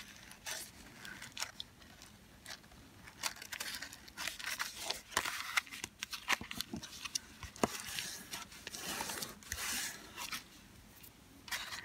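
Stiff cardstock, lined with tissue paper, being folded along its score lines and pressed flat by hand: irregular paper rustles, crackles and sliding scrapes.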